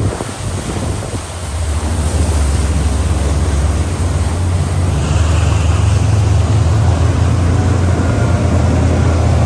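Boat's engine running at a steady drone, with rushing wind and water noise over it.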